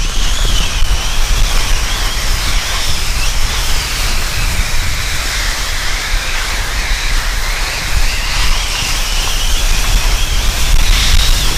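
Small drone's propellers whining, the pitch wavering up and down as it flies, over a steady hiss and low rumble.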